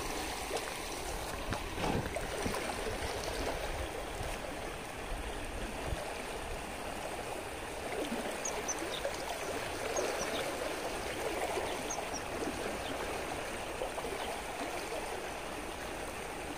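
Sea water sloshing and trickling steadily among the rocks, with small scattered clicks and ticks.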